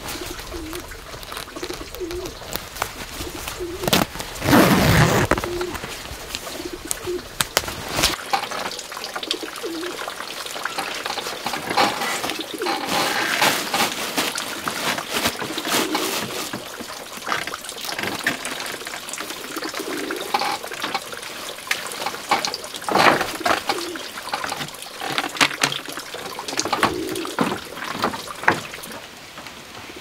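Pigeons cooing repeatedly, mixed with frequent clicks and knocks and a loud rushing noise about four seconds in.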